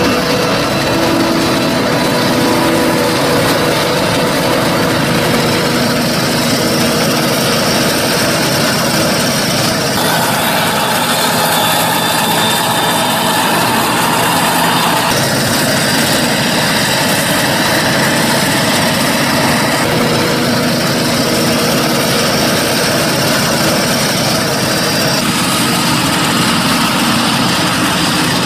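Claas Jaguar forage harvester chopping maize with a tractor and forage wagon running alongside: a steady, loud engine drone with a high whine over it. The mix of machine sounds shifts several times.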